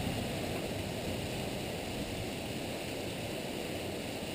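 Heavy rain pouring down steadily in a thunderstorm.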